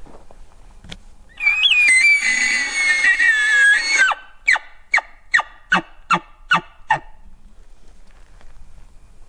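Elk bugle: a long, high whistle lasting nearly three seconds that ends with a sudden drop in pitch, followed by seven short chuckles, about three a second.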